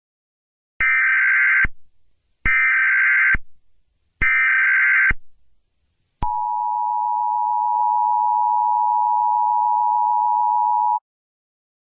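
Emergency Alert System tones: three short bursts of SAME header data, a harsh buzzing screech each lasting under a second, followed by the steady two-tone EAS attention signal held for about five seconds.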